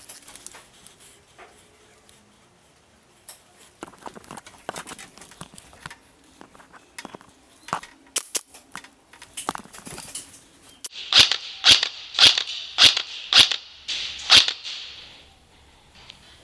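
Sharp snapping shots of airsoft guns, scattered and uneven at first, then a run of about seven louder cracks roughly half a second apart near the end.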